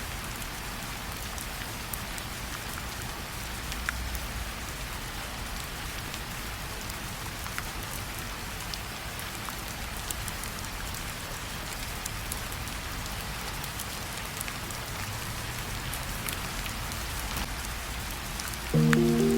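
Steady soft rain falling, a fine even patter with scattered drop ticks. Music comes back in near the end.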